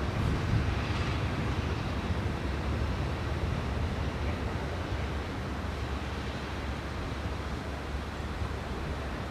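Electric locomotive running light and moving away along the track, its low rumble slowly fading.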